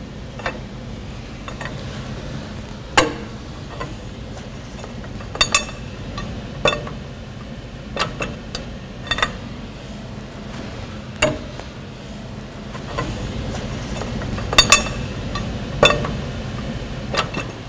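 Irregular metal clinks and knocks from hand tools on a forklift's wheel hub lug nuts, about a dozen strikes, some ringing briefly, the loudest about three seconds in and a quick pair near the end. A steady low shop hum runs underneath.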